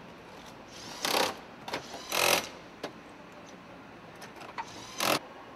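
Handheld power driver running in three short bursts, driving fasteners home, with a few small clicks between the bursts.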